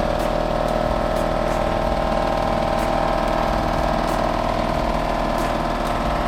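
A motor-driven machine running steadily with a constant whine, some faint ticks through it.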